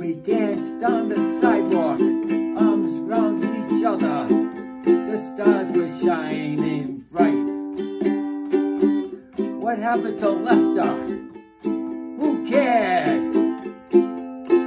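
Ukulele strummed by hand in a steady rhythm, with a man singing over it in two long phrases, the second starting about halfway through.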